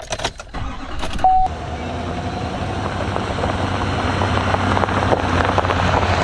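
Car running down the road, heard from inside the cabin: a steady low drone with road noise that grows slightly louder. A few clicks at the start, and a short high beep just over a second in.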